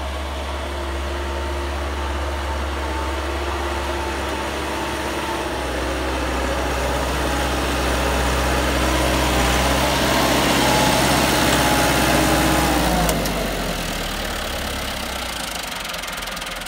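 Massey Ferguson 385 tractor's four-cylinder diesel engine running steadily under load as it pulls a plough through dry soil. It grows louder to a peak, then drops off sharply near the end.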